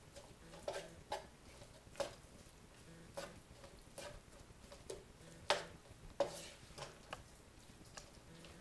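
Wooden spatula scraping and knocking against a wok while stir-frying rice, as irregular short strokes about one every half second to second.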